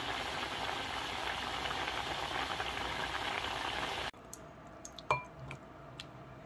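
Yukgaejang (spicy beef-bone soup) at a rolling boil, a dense steady bubbling that cuts off suddenly about four seconds in. Then a ladle clinks a few times against the pot and bowl as the soup is scooped out.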